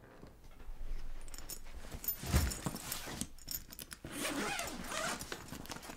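A fabric suitcase being handled and unzipped: zipper rasping and fabric rustling, with a soft thump about two and a half seconds in.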